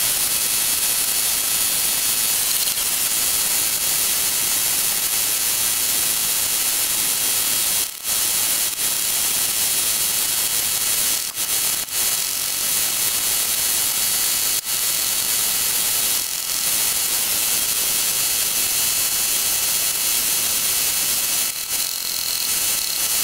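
A steady, loud hiss of noise, brightest in the treble, with a few brief dips.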